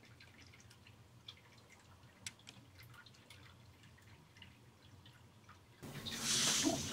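Faint, scattered small ticks in a quiet room. About six seconds in, a sudden loud rustling of blankets begins as a hand handles the bedding close to the microphone.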